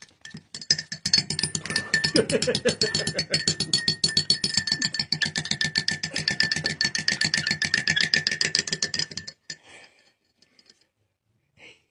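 A metal teaspoon clinks rapidly and unevenly against a ceramic mug as a parakeet stirs with it in its beak, the mug ringing under the strikes. The clinking stops near the end.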